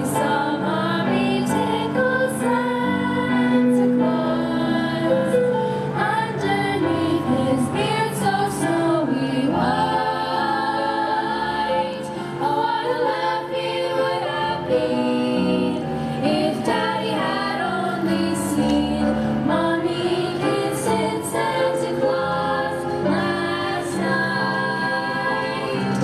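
Girls' youth choir singing a song in several voices over a steady instrumental backing.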